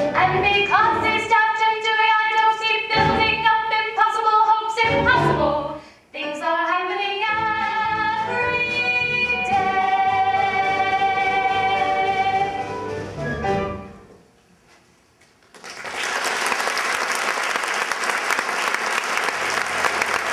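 Women's voices singing a musical-theatre number, ending on a long held high note about two-thirds of the way through. After a short lull, an audience breaks into applause.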